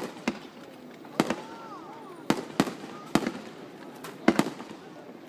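Fireworks display: about eight sharp bangs from shells bursting, irregularly spaced and some in quick pairs.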